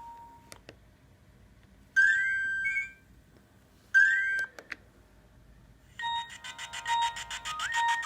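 Nokia 2310 mobile phone playing ringtones through its small speaker: a short chirpy tone that sweeps upward, played twice about two seconds apart, the second shorter, then a buzzy, rapidly pulsing melody of stepped tones starting about six seconds in. Faint clicks come between them.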